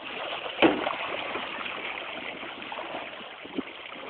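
Water splashing and lapping against a canoe hull as it moves under sail, with one sharp knock about half a second in.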